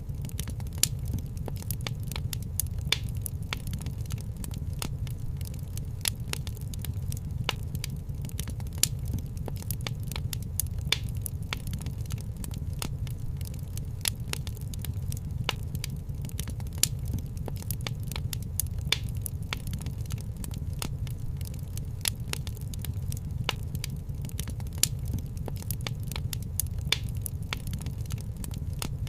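Wood fire burning in a fireplace: a steady low rumble of flames with frequent sharp crackles and pops.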